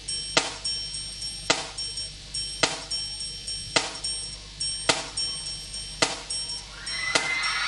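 Live band's drum kit playing a steady beat to open a song, a heavy hit about once a second with lighter hits and cymbal between.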